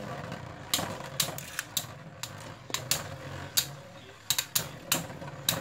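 Metal Beyblade spinning tops, Guardian Leviathan and Mercury Anubis, spinning and clashing in a plastic stadium: irregular sharp clicks and clacks as they strike each other and the stadium wall, over a low steady whir.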